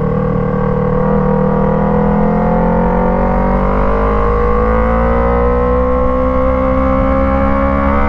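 Yamaha MT-03 parallel-twin engine running through an Arashi aftermarket exhaust with a dB killer fitted: still loud, but held back. Engine speed is steady at first, then the pitch rises slowly from about three seconds in as the bike picks up speed.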